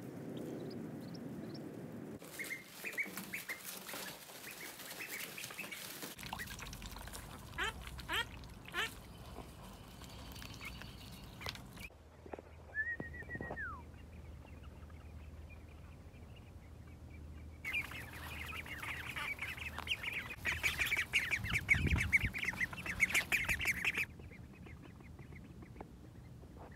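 Young Indian runner ducks calling: quick runs of high peeps and quacks, heard in short stretches that start and stop abruptly, loudest about three-quarters of the way through.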